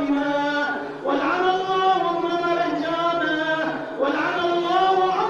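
Many men chanting a noha, a Shia mourning lament, together in long held sung phrases. A new phrase starts about a second in and another about four seconds in.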